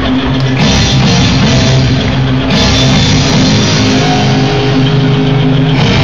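Loud rock music with electric guitar and drums played over a hockey arena's sound system.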